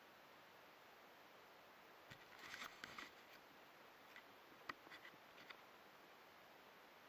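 Faint clicks and rustles from a small action camera being handled and turned around on its mount, by hand: a cluster about two to three seconds in, then a few sharper clicks, the loudest near the middle, over a faint steady hiss.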